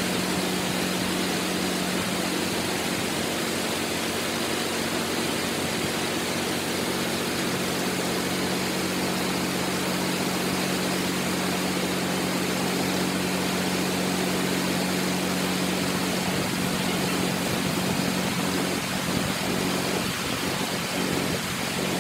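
Large crawler bulldozer's diesel engine running at a steady, unchanging pitch under a constant hiss of noise.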